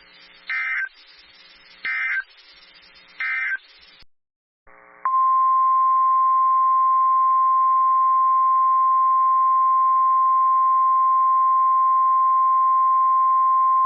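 NOAA Weather Radio alert signalling: three short warbling SAME data bursts about a second and a half apart over receiver hiss, the end-of-message code closing the previous warning. After a brief gap comes the steady 1050 Hz warning alarm tone, held for about nine seconds, which announces a new warning.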